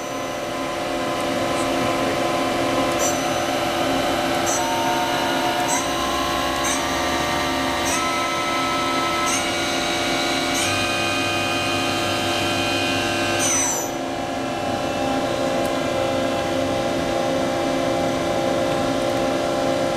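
Makino A51 horizontal machining center spindle commanded to 5,000 rpm, running over a steady machine hum. About four seconds in, a whine starts and climbs in distinct steps for roughly nine seconds, then drops away suddenly about 14 seconds in. Short high clicks come now and then while the whine climbs.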